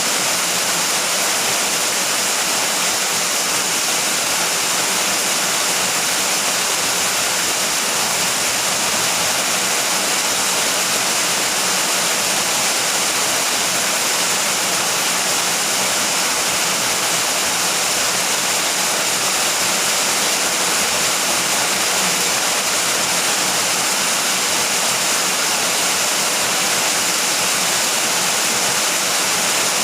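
Steady heavy rain falling, an even unbroken hiss without thunder.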